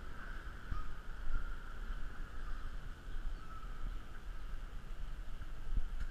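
Outdoor street ambience picked up by a body-worn GoPro while walking: a steady low rumble on the microphone, with a soft thump about a second in and another near the end.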